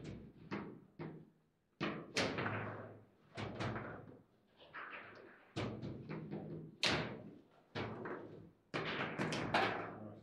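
Table football in play: a rapid, irregular series of sharp knocks and clacks as the ball is struck by the rod-mounted figures and bangs off the table walls, with rods clacking in their bearings.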